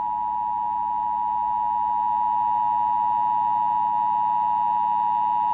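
Emergency Broadcast System attention signal, sounded for a test of the system: two steady tones sounding together as one loud, unchanging alarm.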